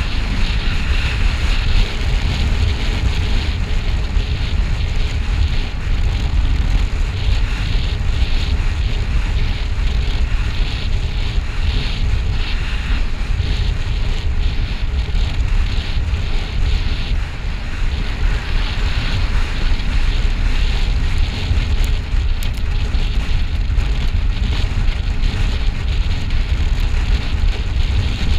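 Wind buffeting the microphone of a bike-mounted camera on a fast road-bike descent: a loud, steady rush with a heavy low rumble.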